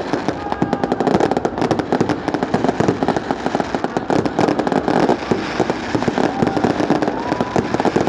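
Fireworks going off in rapid succession: a dense, continuous crackle of many small bangs, with a few short whistling tones here and there.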